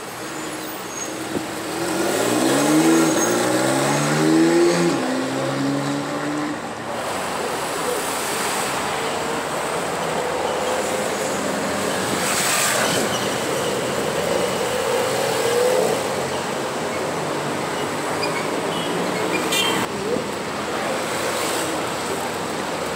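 Porsche car engines accelerating as the cars pull away from a standstill. The engine pitch rises twice in quick succession about two to five seconds in, then street traffic noise runs on, with another Porsche engine pulling away near the end.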